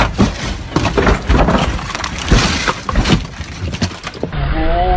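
A car crashing off the road, heard from inside the cabin: a rapid, irregular run of loud crunching impacts and breaking glass that stops about four seconds in. A short raised voice follows near the end.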